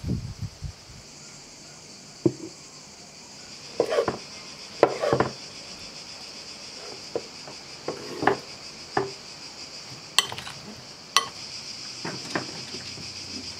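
Kitchen food-prep sounds: a knife cutting fresh figs on a wooden board and a metal spoon and glass bowl clinking, about a dozen short sharp knocks and clinks. A steady high chirring of insects runs underneath, growing stronger about a second in.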